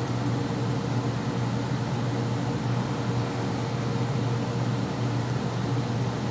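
Room air conditioner running: a steady low hum over an even hiss.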